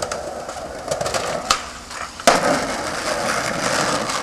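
Skateboard wheels rolling over rough asphalt, with a few light clicks and one loud sharp clack of the board a little over two seconds in.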